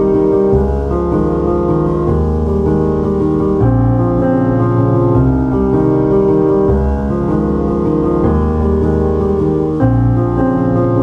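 Background piano music, slow sustained chords over a low bass line.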